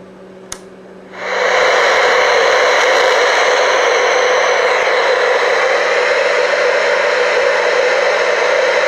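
A click as an old CRT television is switched on, then about a second later loud, steady static hiss from its speaker.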